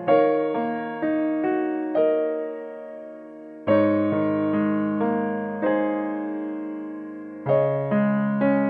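Background piano music: a slow melody of struck notes that ring and fade, with new chords struck near the start, about halfway through and near the end.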